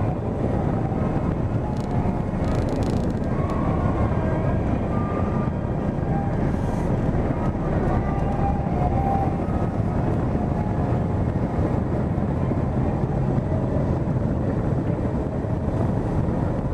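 Car driving slowly in city traffic: a steady low rumble of engine and road noise.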